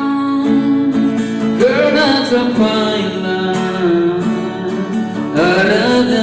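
Worship song in Nepali, a voice singing over strummed acoustic guitar.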